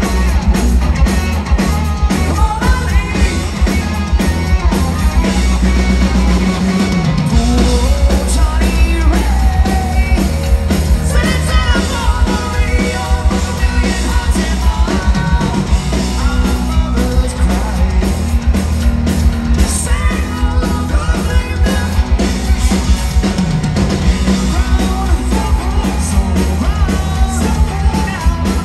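Live rock band playing loud: a lead singer singing into a microphone over electric guitar and drums.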